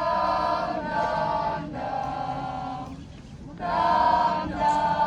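A speech choir of many voices singing long held notes together, a phrase of several sustained notes with a brief pause a little past halfway.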